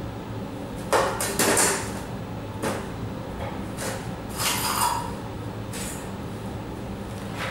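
Small objects being picked up and set down on a table: a series of short knocks, clinks and scrapes, the loudest about a second in.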